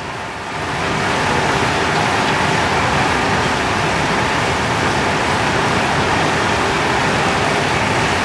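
Coconut charcoal briquette extruder and its conveyor belt running, a loud steady machine drone that grows louder about a second in and then holds level.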